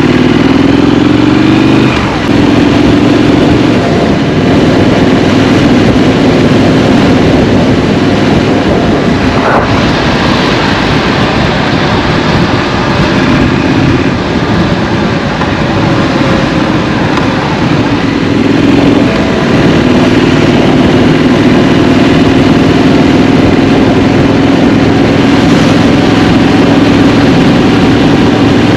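Scrambler motorcycle engine running under way, rising in pitch as it accelerates over the first two seconds, a brief dip as it shifts gear, then pulling at a fairly steady pitch with small changes in speed.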